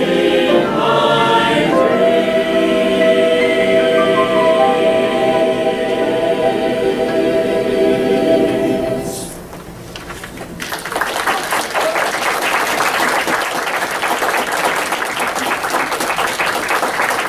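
Mixed choir holding the final sung chord of a song, which dies away about nine seconds in. After a brief pause an audience breaks into applause and claps to the end.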